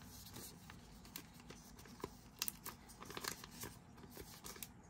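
Faint crinkling of a thin plastic penny sleeve and light scrapes of a trading card as the card is slid into it. Small soft clicks and rustles come and go, a few more of them a little past the middle.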